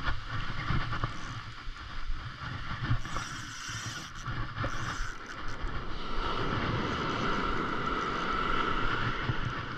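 Wind buffeting the microphone over surf washing onto a sandy beach, with a spinning reel being cranked to retrieve line.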